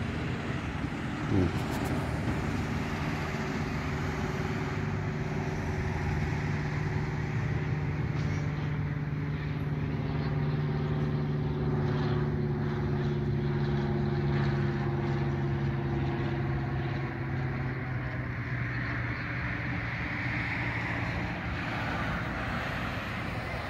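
An engine running steadily close by, a low even hum whose pitch sags slightly, dying away about three-quarters of the way through.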